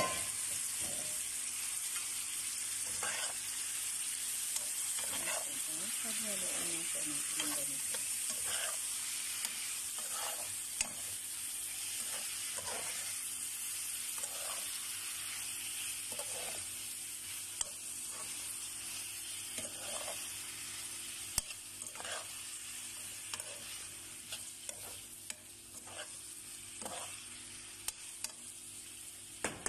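Freshly added sliced bitter gourd (ampalaya) sizzling in a frying pan, with a spatula stirring and scraping against the pan about once a second. The sizzle eases slightly toward the end.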